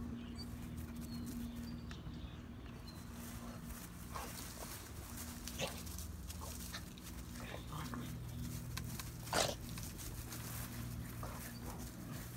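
A boxer and a small black dog play-fighting, with short, sudden dog noises scattered through and one louder one about three-quarters of the way in. A steady low hum runs underneath.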